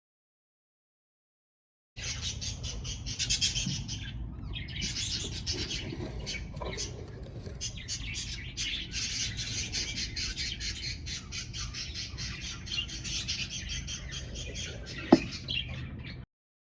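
A flock of budgerigars chattering and squawking together, a dense run of quick high calls that starts after about two seconds of silence. One sharp click or knock stands out near the end, just before the sound cuts off suddenly.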